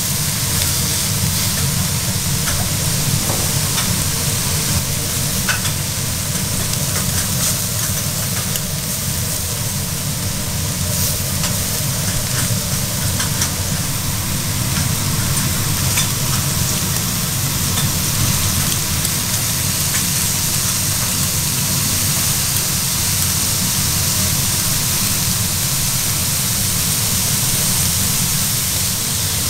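Beef cubes sizzling steadily on a hot iron griddle plate, with a few faint ticks over a steady low hum.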